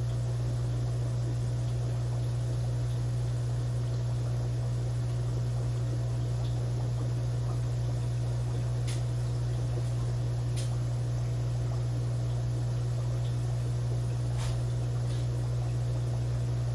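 Aquarium equipment running: a steady low hum under a faint even hiss of water, with a few soft clicks.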